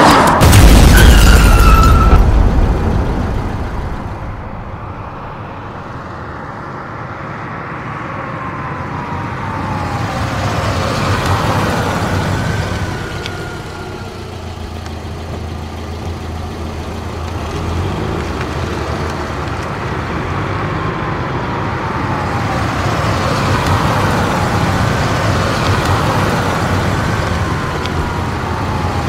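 Cars driving past, each engine note falling in pitch as it goes by, with a loud boom in the first two seconds.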